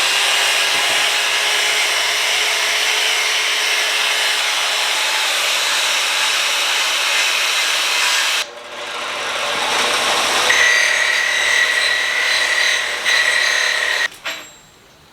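Power-tool-driven wire wheel scouring scrap steel angle and plate down to bare metal, running steadily. It stops sharply about halfway through, then starts again with a steady high whine and cuts off near the end.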